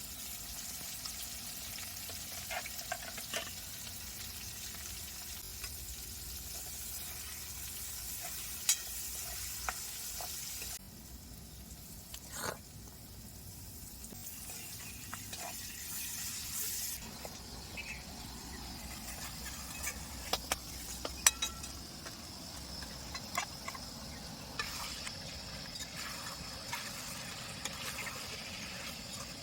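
Food frying and sizzling in a pan, with scattered clicks of a utensil stirring it.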